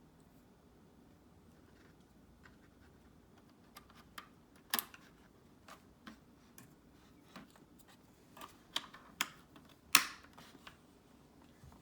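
Scattered clicks and taps of small hard objects being handled, irregular and sparse, with the two loudest about halfway through and near the end.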